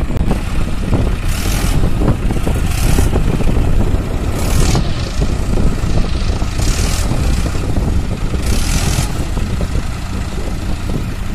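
Farm tractor's diesel engine running steadily while the tractor is stuck in deep mud, with a rushing hiss that swells and fades about every two seconds.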